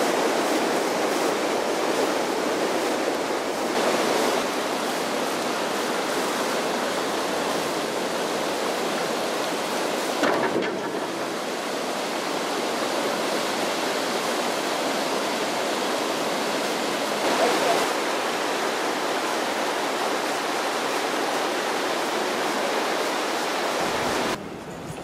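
Water rushing through the sluices of a canal lock gate and churning in the lock chamber: a steady rushing noise. It cuts off abruptly near the end.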